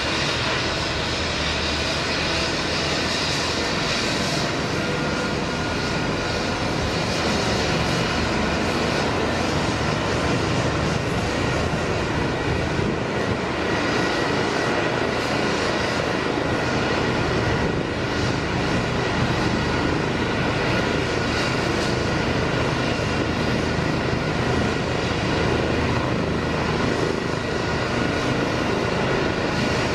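Eurocopter EC 135 twin-turbine helicopter running on its pad ahead of takeoff, a steady turbine whine over the rotor noise.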